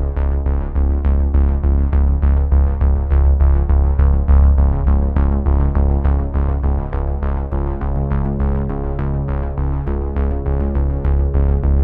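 Background instrumental music: a synthesizer piece with a quick, steady pulse over held low bass notes.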